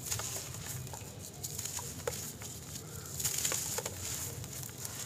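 Hands crumbling dry brown dirt clods: gritty crunching and crackling, with loose soil pattering down through the fingers, busiest about three seconds in.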